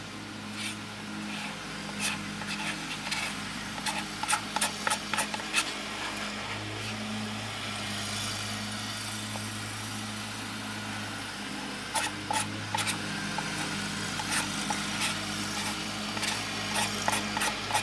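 A car engine idling with a steady low hum, heard from inside the cabin. Over it come clusters of short clicks and scrapes as ice cream is spooned from a pint container and eaten.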